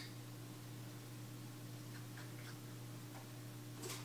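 Steady low appliance hum with a few faint ticks about two seconds in and one sharp click near the end.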